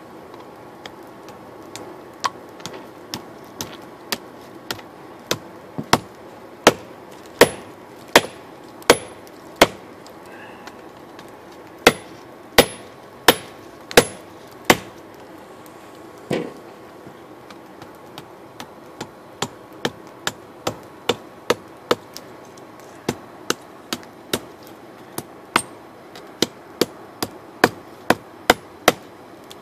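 Hand hammer forging red-hot steel, a cut-down adjustable wrench being drawn into a knife, on a small steel anvil block: a long series of sharp, ringing blows, about one and a half a second, in runs with short pauses between. The heaviest blows fall in the middle, and lighter blows come near the end. The forge burner hisses steadily underneath.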